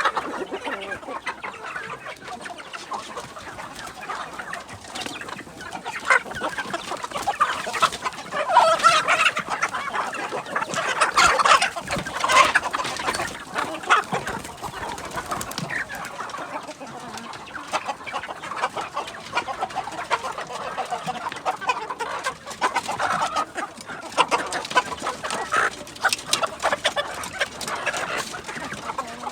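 A flock of kampung–Bangkok crossbred chickens clucking and calling. The calling is busiest about a third of the way in and again near the end, with many short clicks among the calls.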